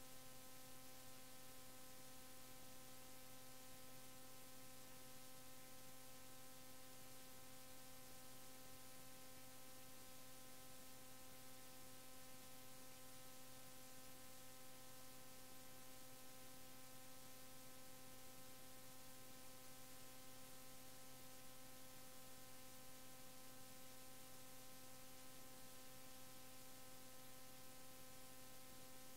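Near silence: a steady electrical hum of several even tones over a faint hiss, unchanging throughout.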